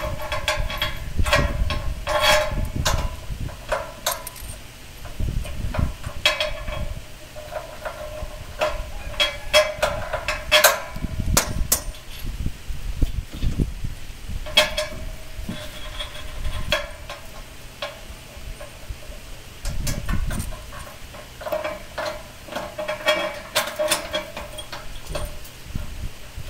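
Irregular metallic clinks and knocks of tools, bolts and nuts against the steel frame of a concrete block moulding machine as the mould is bolted to its carrier, some with a short ring.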